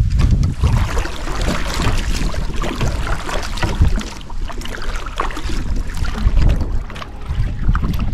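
Water sloshing and splashing around a kayak, with wind rumbling on the microphone.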